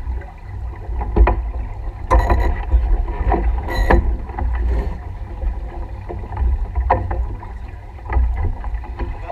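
Wind buffeting the microphone and water washing past the hull of a sailboat under way. Several sharp clicks and knocks from gear on deck sound over it, the loudest about two seconds and four seconds in.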